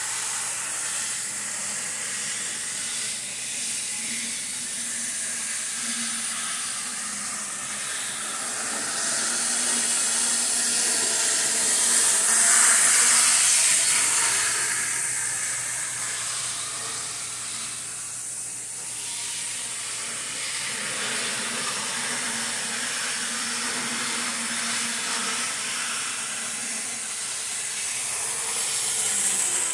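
Mantua 2-6-6-2 articulated model steam locomotive running on a layout, giving a steady steam-like hiss. The hiss grows loudest about halfway through as the locomotive passes close, then eases off.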